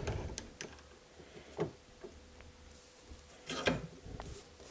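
Scattered light clicks and knocks from handling the cylinder head bolts, the loudest cluster about three and a half seconds in.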